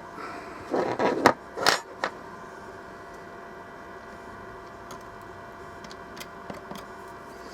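Small hard parts being handled on a workbench: a short run of clicks, knocks and rattles about a second in, then a few faint ticks, over a steady electrical hum.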